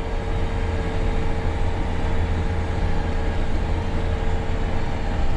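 John Deere 9R 490 articulated tractor running steadily, heard inside its cab as a deep, even drone with a steady whine over it.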